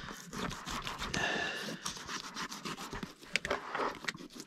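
A filleting knife cutting into a large-mouth nannygai, behind the head and then along the body. The blade makes a rapid run of small clicks and scratches as it goes through the scales and flesh.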